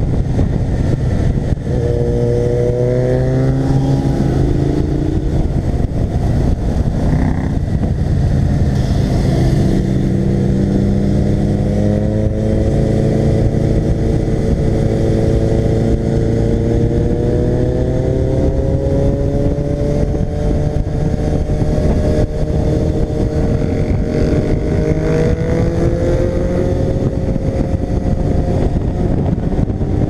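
Sport motorcycle engine pulling hard at speed under the rider, its pitch climbing in a short run about two seconds in and then in a long slow rise that drops back near the end, over a steady rush of wind on the microphone.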